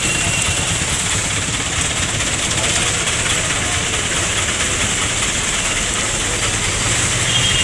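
Steady street traffic noise: a low rumble of running vehicle engines with a hiss over it, and no single sound standing out.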